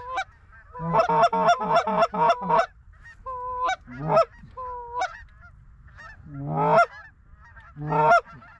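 Goose calls, honks and clucks: a fast run of clucks about a second in, then single honks spaced apart, a drawn-out rising call, and a last honk near the end.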